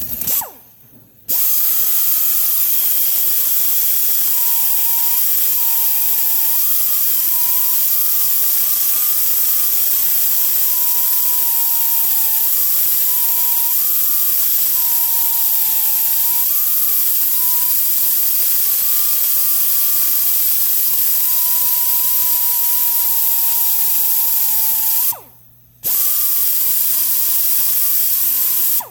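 Rotary grinder spinning a carbide burr, cutting into a broken exhaust stud in a cylinder head. It runs steadily with a high hiss, and its pitch dips and recovers as the burr is pressed into the metal. It stops briefly near the end, then starts again.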